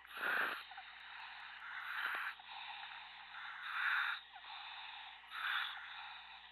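A surface-supplied diver breathing through his helmet's demand regulator, heard over the diver-to-surface comms line: a rush of breath with a hiss of the valve about every one and a half to two seconds, over a steady line hum.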